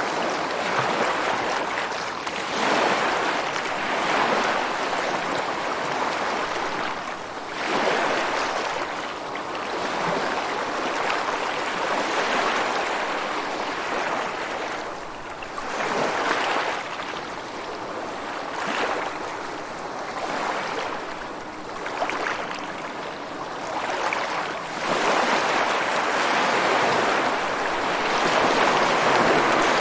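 Ocean surf: waves breaking and washing ashore, a continuous rush that swells and ebbs every few seconds, with a long, louder surge near the end.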